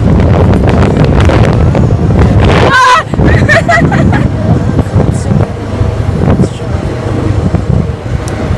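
Quad (ATV) riding: heavy wind rumble on the microphone over the running engine, with short shouts about three seconds in.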